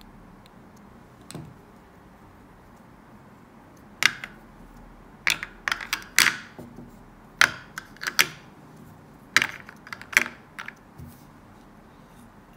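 Paper-mache napkin rings clicking against each other and against the lacquered paper-mache box as they are set into it. About a dozen light, sharp knocks come in small clusters, starting about four seconds in.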